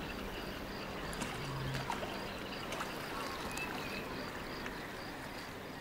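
Shoreline ambience: calm water lapping and trickling among rocks, with a few faint bird chirps.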